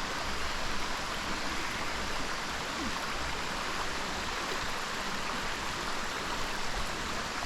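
Waterfall pouring into a pool, a steady rushing hiss.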